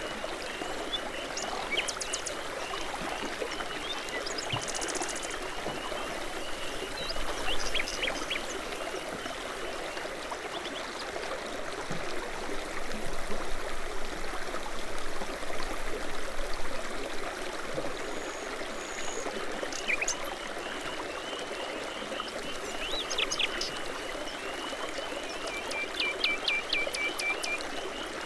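Babbling brook in spring, the water running in a steady rush, with songbirds chirping and trilling over it at intervals: a quick high trill about five seconds in and a run of short, evenly spaced notes near the end.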